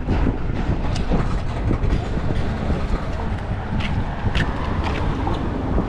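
Wind buffeting the microphone in a steady low rumble, with a few sharp clicks.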